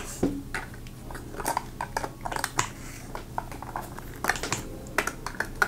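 Small foundation bottles being handled and set into a foam-held divider in a makeup case: a string of light, irregular clicks and taps as the bottles and their caps knock against each other and the divider.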